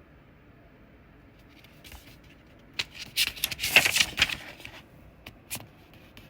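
Paper rustling as a book page is turned, a cluster of crisp rustles loudest about three to four seconds in, with a few fainter clicks before and after.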